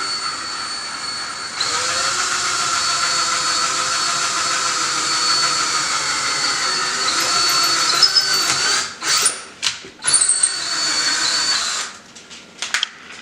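Power drill boring a knob hole through a cabinet door, its motor whining steadily. It stops and starts briefly a few times about nine seconds in, runs again, and cuts off near the end.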